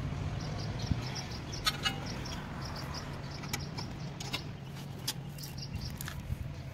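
A few sharp metal clicks from wrenches working on the brake caliper bolts, over a steady low hum and faint high chirps.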